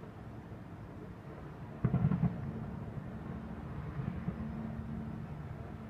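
Distant fireworks booming over a steady low rumble, with a sudden cluster of heavy bangs about two seconds in.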